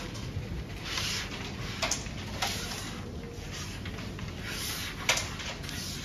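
Carrom men clicking against each other and sliding across the board as they are gathered and set out in the centre circle; a few sharp clicks, the loudest about five seconds in.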